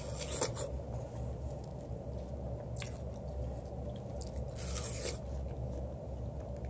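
Biting into and chewing a slice of watermelon: a few short crisp crunches, about half a second in, around three seconds, and again around four and a half to five seconds, over a steady low hum.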